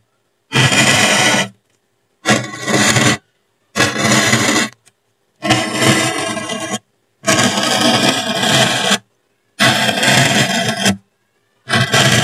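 A hot soldering-iron tip drawn through polystyrene foam, melting grooves with a squeaky, rasping scrape. It comes as about seven separate strokes of one to one and a half seconds each, with silence between them.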